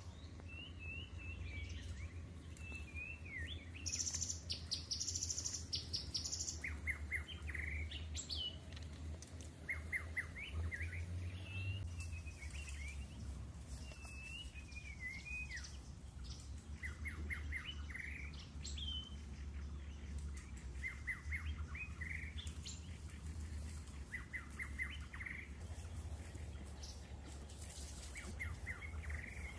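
Wild birds singing and calling: short phrases of quick chirps repeated every second or two, with a denser high trill a few seconds in, over a steady low hum.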